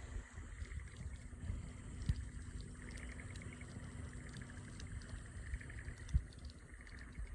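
Low rumbling outdoor ambience, like wind on the microphone, with faint rapid trills twice and a couple of short knocks, the sharpest about six seconds in.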